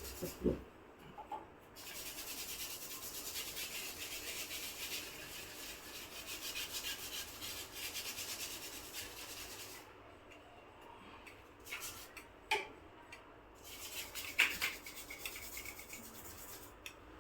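Solder paste being scraped and rubbed across a BGA reballing stencil on an SSD chip, a steady scratchy rubbing for several seconds, then a few light taps and short scrapes.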